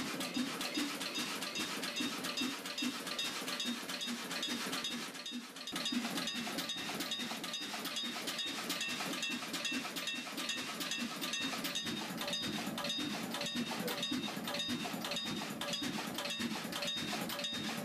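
Three-cylinder Callesen 427 CO marine engine running, a steady, even knocking rhythm with a metallic ring in each beat; the sound dips briefly about five seconds in.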